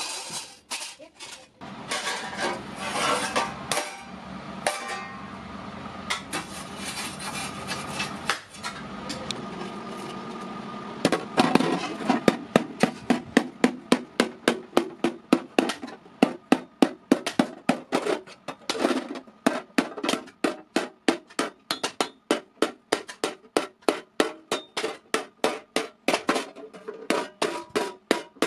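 Hammer blows on an iron plate resting on a round hollow block as it is dished into a thali. The strikes come irregularly at first, then from about eleven seconds in as a steady run of about two to three a second.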